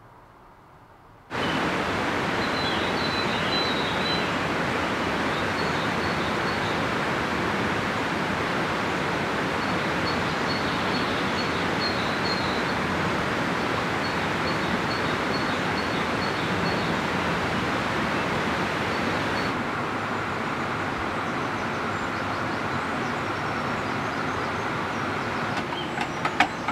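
A steady rushing noise starts about a second in, with a few faint, high bird chirps over it. Near the end a spoon clinks against a glass coffee jug as coffee is stirred.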